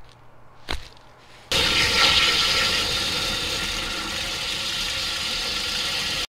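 Steady rush of running water that starts suddenly about a second and a half in and cuts off abruptly near the end.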